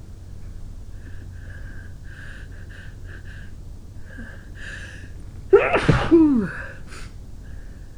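A woman sneezing once, loudly, about five and a half seconds in, after several short, quieter sounds as the sneeze builds.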